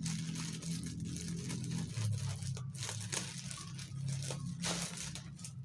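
Thin plastic courier mailer crinkling and tearing as it is pulled and cut open by hand, with a few sharp crackles.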